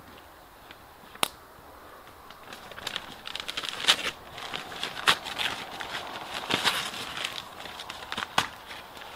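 Twigs and kindling crackling and snapping, with one sharp snap about a second in and a busy run of irregular crackles from about three seconds on.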